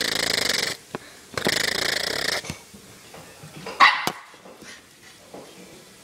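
A small dog gives one short, sharp bark about four seconds in, after two rough, noisy bursts of about a second each earlier on, with a few fainter sounds after the bark.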